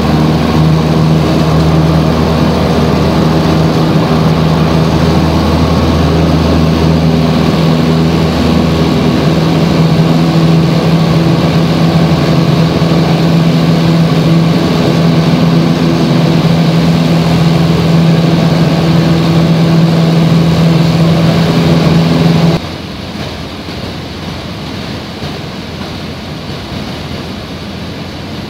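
Piper PA-28's piston engine and propeller at full power, a loud, steady drone heard from inside the cabin during the takeoff and climb-out. About three-quarters of the way through it cuts abruptly to a much quieter rushing sound.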